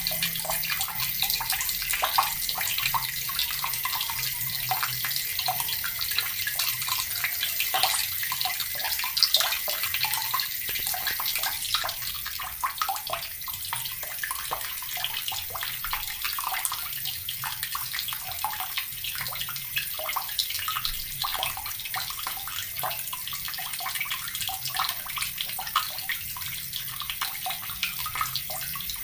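Water from a tap pouring steadily into a bucket, splashing and bubbling continuously.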